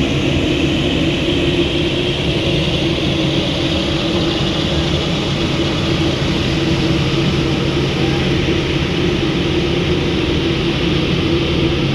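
Jet airliner engines running at taxi idle: a steady, unbroken hum with a hissing whine over it.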